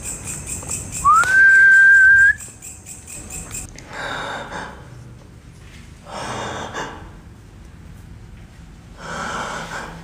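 A single whistle about a second in: the note slides up, then holds steady for just over a second. Three short breathy rushes of air follow, a couple of seconds apart.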